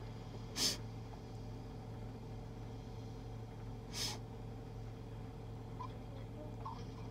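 A person's two short, sharp breaths through the nose, about three seconds apart, over a steady low hum.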